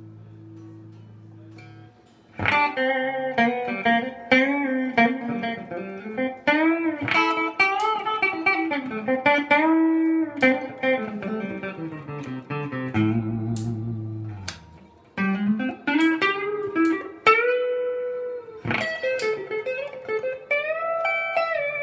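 LsL Saticoy electric guitar played unaccompanied through an amp. A held chord rings out and fades, then blues-style single-note lead lines with string bends follow, with a short pause about two-thirds of the way through.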